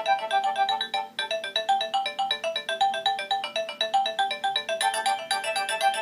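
A Nokia 6230i ringtone playing a fast electronic melody of short, rapid notes. It breaks off briefly about a second in, then carries on, and more high parts join near the end.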